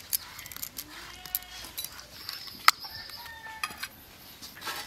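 A few sharp clinks and light scrapes of steel bowls and plates being handled, the loudest about two and a half seconds in, with faint chicken clucks in the background.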